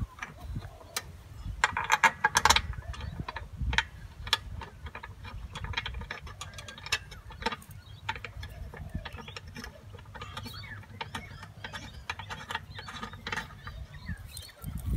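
Metal clinks and clicks of a steel shackle being fitted and its pin screwed home as a tow strap is attached to a ride-on mower's frame, with a cluster of louder ringing clinks about two seconds in, over a low rumble.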